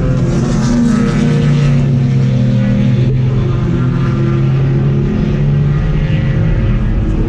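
Race car engine running hard at high, steady revs, heard from inside the car, with tyre and wind noise. The pitch dips briefly about three seconds in, then steadies again.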